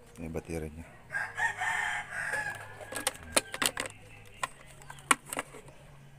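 A rooster crowing once, starting about a second in and lasting about a second and a half. It is followed by several sharp clicks and knocks from hands handling plastic parts.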